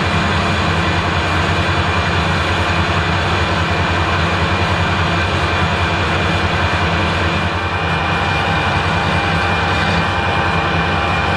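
Harrison lathe running at speed with its large four-jaw chuck spinning while the tool faces off the end of a steel bar: a loud, steady machine drone with a fast low throb.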